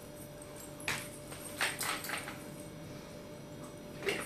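Quiet room tone with a faint steady hum, broken by a few brief taps and clicks: one about a second in, a short cluster around two seconds in, and another near the end.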